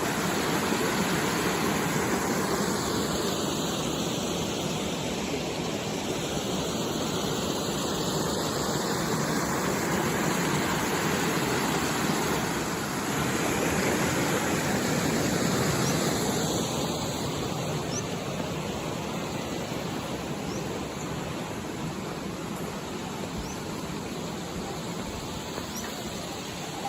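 Steady rush of flowing water, loud and even, with a hollow swishing that slowly shifts in tone.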